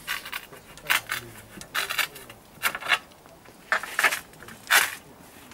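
Sharp hard clacks and clinks of 6 mm porcelain stoneware tile being handled on a Sigma KeraCut manual tile cutter, often in pairs, about once a second, the loudest near the end.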